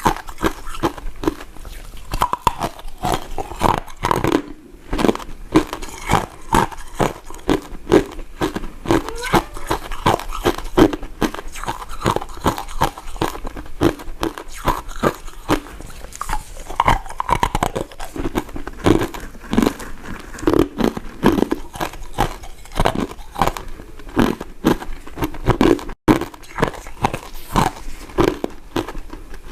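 Close-miked chewing and biting of soft, powder-coated mint candy: a steady run of mouth clicks and smacks, with a brief dropout near the end.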